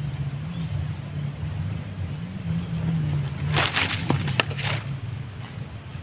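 Rustling and light clattering as a wooden bird cage is handled and its cloth cover pulled off, loudest a little past halfway, over a low engine drone. A couple of short, high bird chirps come near the end.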